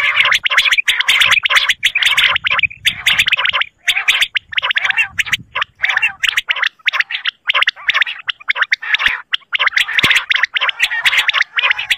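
Recorded common quail (batair) calls played as a hunting lure: rapid rattling trills in bursts of about half a second to a second, separated by short breaks.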